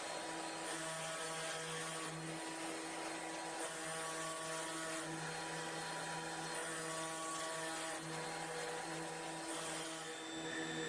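CNC router spindle running steadily as it carves wood. Its motor hum shifts slightly in pitch every second or two over a constant cutting hiss.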